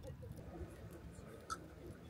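Wood fire crackling in a metal fire pit, with one sharp pop about a second and a half in, under faint low voices.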